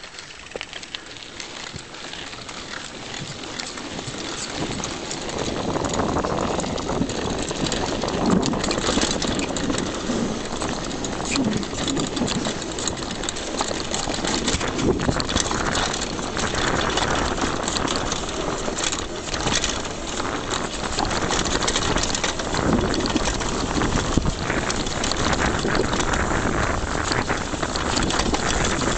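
Mountain bike riding fast down a dirt and gravel trail, heard from the rider's chest: tyres crunching over loose ground with the bike rattling and clattering over bumps. It builds over the first few seconds as speed picks up, then runs on as a steady, busy rush.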